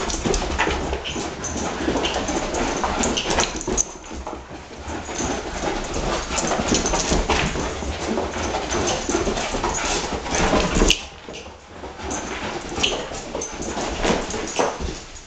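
Dog playing on a rug: scuffling and scrabbling with dog whimpers and noises. It is busy and continuous, then a sharp click about eleven seconds in and a brief lull before it picks up again.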